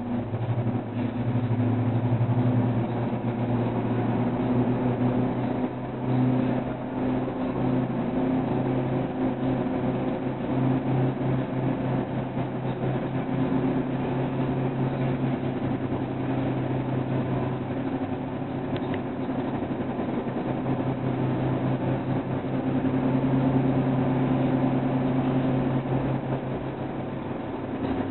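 Steady aircraft engine drone, a low hum with a second steady tone above it, starting at once and holding at an even level throughout.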